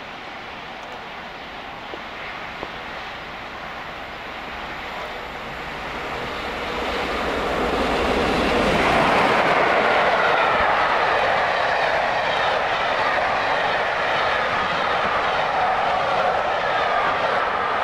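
Peppercorn A1 Pacific steam locomotive 60163 Tornado approaching at speed, growing louder until it passes about nine seconds in. Its train of coaches then rolls by with a steady, loud rush of wheels on rail.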